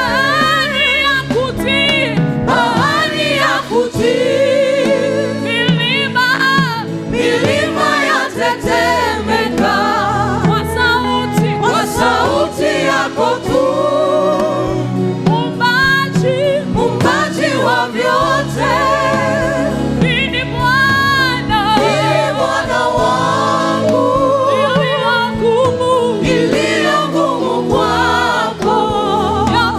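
Gospel worship song: a group of voices singing with vibrato over steady instrumental backing.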